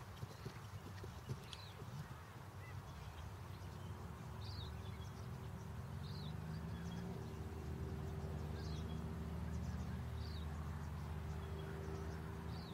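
Hoofbeats of a galloping horse fading away in the first second or so. Then a low engine hum grows steadily louder, with a bird giving short, high calls every second or two.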